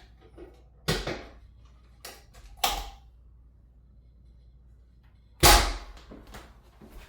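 A few sharp cracks made during a chiropractic adjustment, the loudest about five and a half seconds in.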